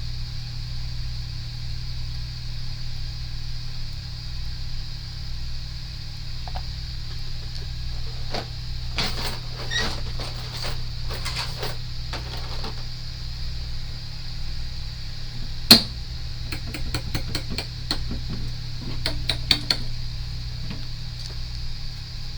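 Small clicks and taps of metal tools working on an SSD circuit board, in two clusters with one sharper click about two-thirds of the way through, over a steady electrical hum and hiss from the repair bench.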